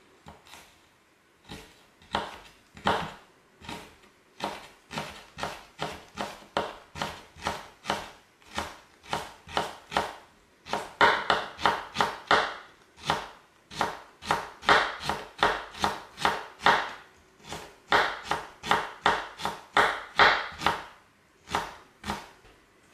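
Kitchen knife slicing fresh ginger into thin strips on a plastic cutting board: steady, even knocks of the blade on the board, about two to three a second, getting louder about halfway through.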